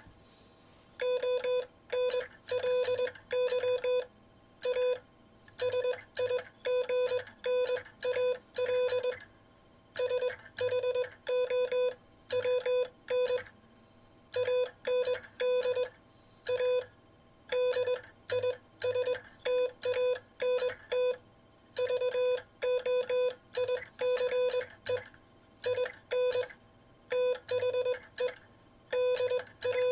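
Morse code sent on a Vibroplex semi-automatic key (bug), heard as a steady mid-pitched tone switched on and off in dots and dashes, with short pauses between groups. The dots are quick and even and the dashes are made by hand, and some of the timing is a little off.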